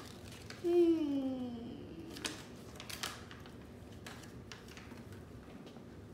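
A child's voice gives a brief wordless sound about a second in, gliding down in pitch, followed by scattered light crinkles and clicks of a small paper-and-plastic toy wrapper being handled and opened.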